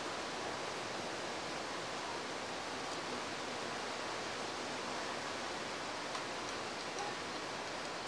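Steady, even background hiss with no distinct events.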